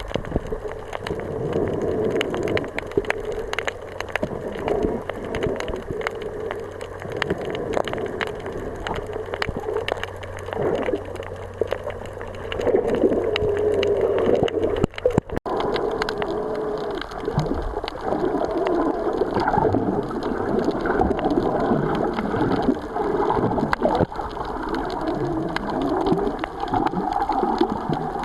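Sea water washing and gurgling without a let-up, briefly broken about halfway through.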